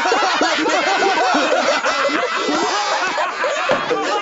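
A crowd of cartoon voices laughing and chuckling together, many voices overlapping without a break.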